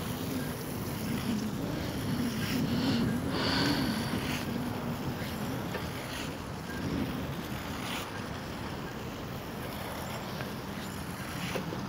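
Inline skate wheels rolling steadily over wet asphalt, a continuous rushing noise with a faint low hum.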